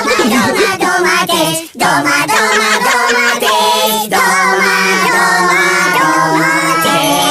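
Children's nursery-rhyme song: a child-like singing voice over backing music with a steady held bass note.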